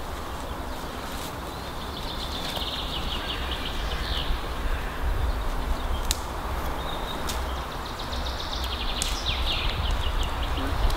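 Songbirds singing, with repeated fast trilled phrases, over a steady low rumble; a few short sharp clicks.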